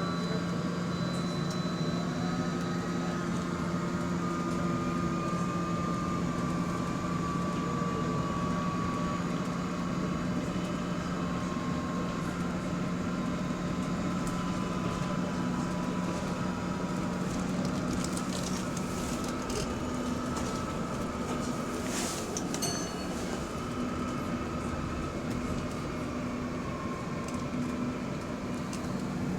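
Inside a moving bus: a steady low drone, with a faint high whine over it that keeps changing pitch, stepping down bit by bit and later coming back up higher. A few sharp clicks come a little past the middle.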